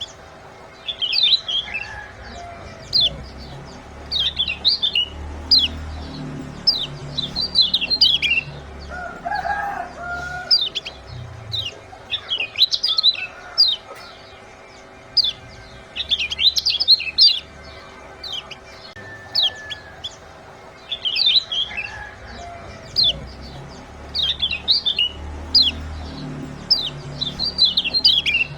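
Kecial kuning white-eyes giving rapid, high 'ciak' chirps: short downward-sliding notes in quick clusters every second or so, as a lure call to get other birds singing. A lower, chicken-like clucking call cuts in briefly about ten seconds in and again near the end.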